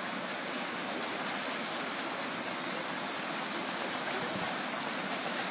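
Steady rushing hiss of a wide, muddy, fast-flowing river.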